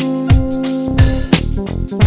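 Background music: a song with guitar and a steady drum beat.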